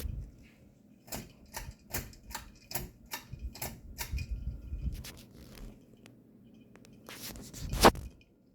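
A run of sharp clicks and light knocks, about two a second, then a louder knock near the end.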